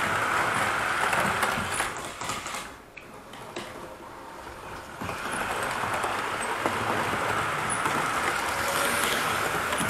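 An OO gauge model HST running along the track, with a steady whirr from its electric motor and wheels. The sound dips briefly about three seconds in, then carries on steadily.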